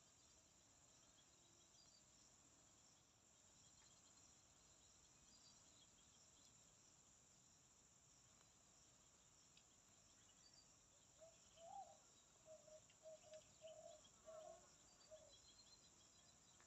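Steady high-pitched chorus of crickets or other insects with faint chirps over it. About eleven seconds in, a run of about seven short, low, pitched calls stands out as the loudest sound.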